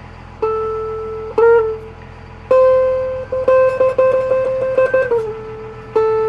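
Electric guitar playing single notes: a few held for about a second each, then one note picked rapidly over and over before it slides down, with a steady low hum underneath.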